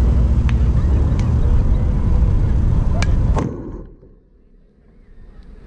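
Wind buffeting the microphone: a loud, low rumble with a few faint clicks, which drops away abruptly about three and a half seconds in and leaves a quiet lull before picking up again near the end.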